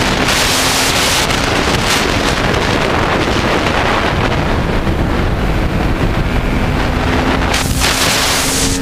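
Heavy wind noise buffeting a helmet-mounted camera's microphone at racing speed on a small motorcycle, almost burying the engine. The engine's note comes through faintly as a steady tone near the end.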